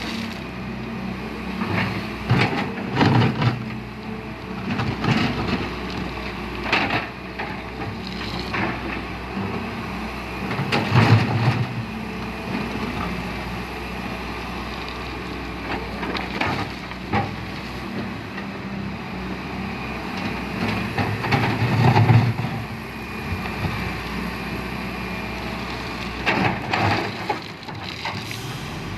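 Diesel earthmoving machinery running steadily, with irregular heavy thuds and clanks of soil and metal as it works, loudest about 3, 11 and 22 seconds in.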